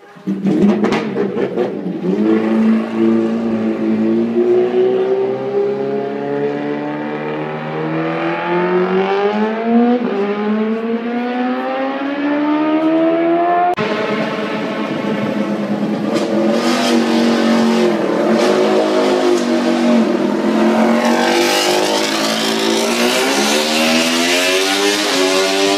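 Racing motorcycle engine running at high revs, its pitch climbing slowly for several seconds, falling back and climbing again as the throttle and gears change.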